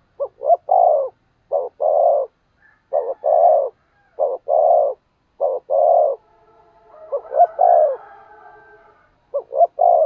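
Spotted dove cooing: about seven phrases in a row, each of one or two short notes followed by a longer coo.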